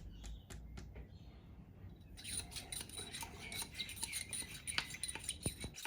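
Light rubbing and scraping with small clicks, getting busier from about two seconds in: a plastic patch holder stirring bore solvent into water.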